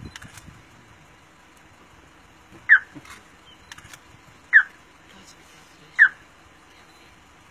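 Three short, high-pitched animal calls, each sliding quickly down in pitch, spaced about one and a half to two seconds apart.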